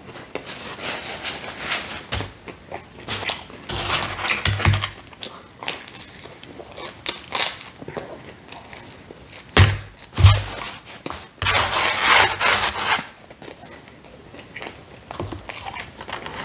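Close-miked chewing and mouth sounds of a man eating pizza, coming in irregular bursts, with a couple of dull thumps about ten seconds in.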